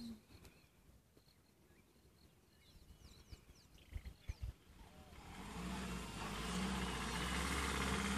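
Faint bird chirps and a few soft clicks. About five seconds in, a vehicle engine comes up and runs steadily with a low hum.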